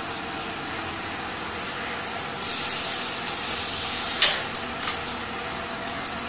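Compressed air hissing for about two seconds as the pneumatic cylinder of a three-way tipper trailer model lets its steel bin down, followed by a sharp knock and a few smaller clicks, with one more click near the end.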